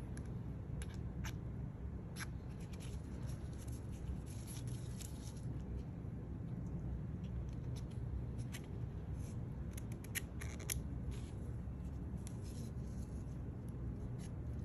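Light clicks and scratchy rustling in several short bunches as an Apple Watch Ultra and its woven Alpine Loop band are handled and the band is slid into the watch's band slot. A steady low hum runs underneath.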